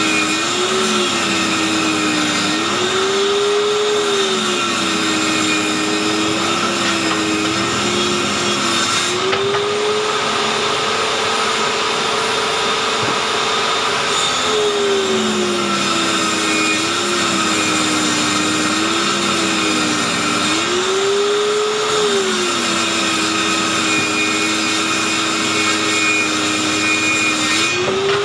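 Handheld electric circular saw mounted under a homemade saw table, running and ripping a wooden board. Its motor pitch sags several times as the blade takes the load of the cut and climbs back as it frees up.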